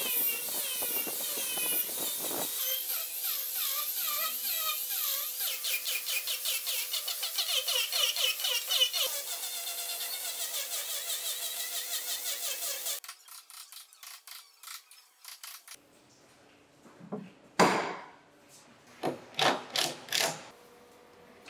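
Electric angle grinder with a sanding disc grinding down the carved wooden body of a car, a steady high whine that pulses in rhythm as it is worked across the wood, stopping abruptly about two-thirds of the way in. Near the end a cordless drill runs in several short bursts.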